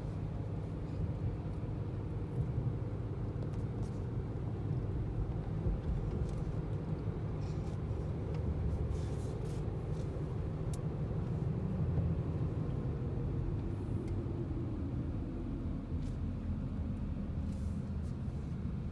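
Car on the road: steady low rumble of engine and tyre noise, with a tone that slowly drops in pitch in the second half.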